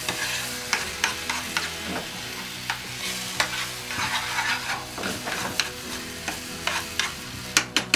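A spoon stirring and scraping morcilla mixture of blood, rice and onion in a frying pan over a wood fire, clacking against the pan a few times a second, with two louder clacks near the end. Steady sizzling of the mixture frying in its own fat runs underneath.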